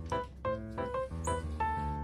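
Background music: a light keyboard tune of short, bouncy notes in a steady rhythm.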